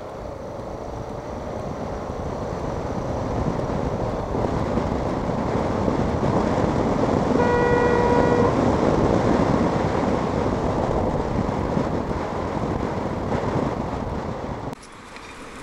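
Riding a motorcycle in traffic: engine and wind noise building up to about halfway and then easing off, dropping away sharply near the end. A vehicle horn toots once for about a second midway.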